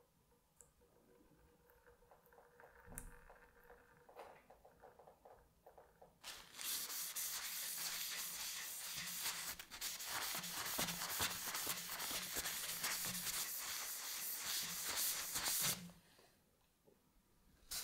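Linseed oil varnish being rubbed into a kingwood handle with a cloth in a gloved hand: a dense, rapid rubbing that starts about six seconds in and stops about two seconds before the end.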